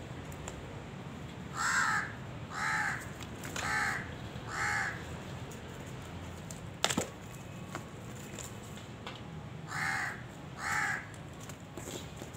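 A crow cawing: four harsh caws about a second apart, then two more later on. A single sharp click falls between the two groups.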